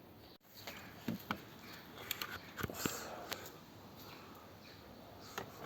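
Faint, scattered light clicks and taps of handling noise, with a brief cut-out in the sound about half a second in.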